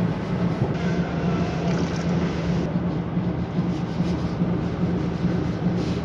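Steady low hum and rumble of running machinery.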